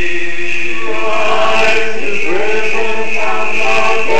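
Choir singing Eastern Orthodox liturgical chant in harmony, with held notes that move to new pitches every second or so.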